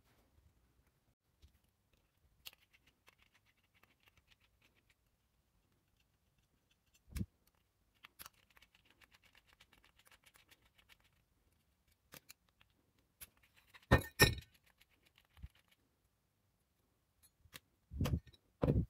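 A screwdriver working the small screws out of an angle grinder's metal gear housing, with faint scraping, and metal parts set down on the bench with scattered clicks and knocks. The loudest knocks come about three-quarters through and again near the end.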